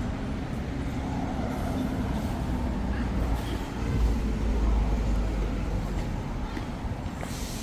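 Steady low rumble of city street traffic, swelling for a couple of seconds about four seconds in.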